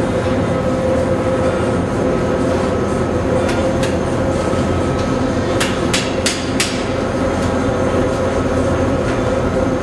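Steady workshop drone with a hum, and a quick run of sharp metallic knocks about halfway through as tools strike metal on a car's exhaust system being fitted from beneath.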